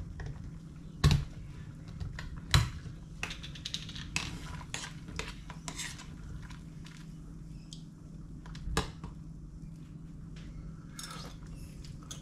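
Utensils clinking and scraping against a cooking pot and dishes, with scattered light clicks and a few sharper knocks, the loudest about a second in, at two and a half seconds and near nine seconds, over a steady low hum.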